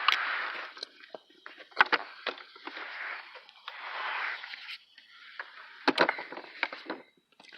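A person breathing hard in long noisy exhales, three of them. Sharp clicks and knocks from handling parts come about two seconds in and again about six seconds in.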